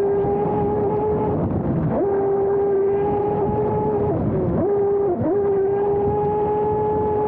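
XTeam 3674 2200KV brushless motor driving an RC F1 outboard racing boat, whining at a steady pitch under throttle over rushing water. The pitch drops briefly about two seconds in and again three times in quick succession around the middle, as the throttle is eased off and back on.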